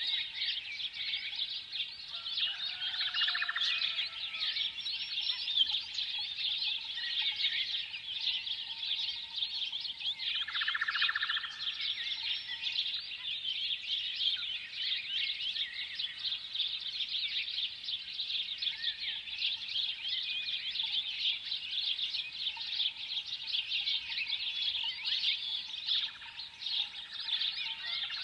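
A chorus of many small birds chirping continuously, a dense overlapping chatter of short, high chirps. A few lower, fuller calls break through now and then.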